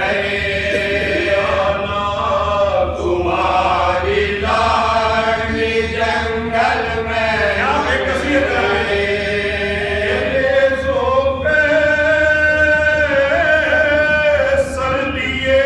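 Group of men chanting an Urdu marsiya, a Shia elegy, without instruments: a lead reciter with the others joining in, in long held notes that glide between pitches.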